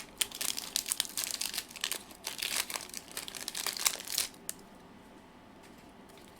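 Foil wrapper of a Pokémon booster pack crinkling as it is handled and torn open, a dense run of crackles that stops about four and a half seconds in.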